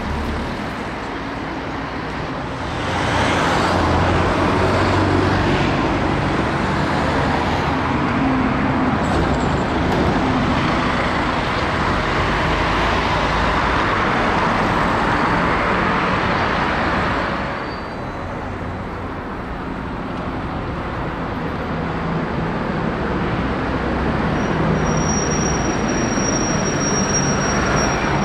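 Alexander Dennis Enviro 200 single-deck diesel buses running at the kerb and pulling away, amid steady road traffic. The engine and traffic noise swells about three seconds in, drops abruptly a little past halfway, then builds again as another bus draws near, with a thin high whine in the last few seconds.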